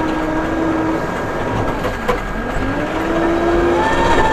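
Case 580M backhoe's diesel engine running: its note sags about halfway through, then rises and holds higher as it revs up under load. A single knock sounds around the middle.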